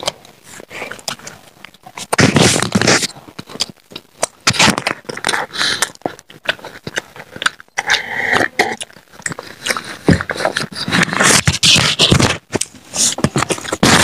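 Close-up eating sounds: wet chewing, crunching and lip-smacking of fried Indian snacks such as samosa, pakora and papad, in quick irregular clicks and bursts.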